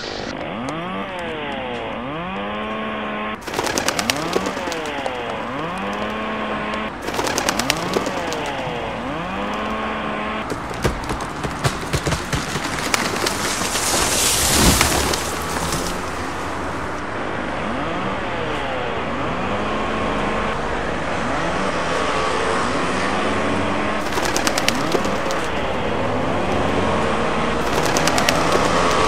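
Experimental sound-art collage: layered tones swooping down and up in repeating arches about once a second, broken by bursts of rapid crackling clicks. A rushing noise swells and peaks about halfway through.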